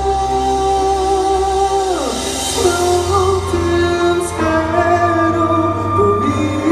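Live ballad music: a singer holds a long note that slides down about two seconds in, then held melody notes continue over a steady bass.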